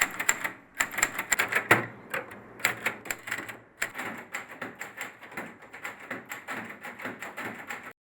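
Mechanical typewriter keys striking in quick, uneven runs of clacks, coming faster and denser in the second half, then stopping suddenly.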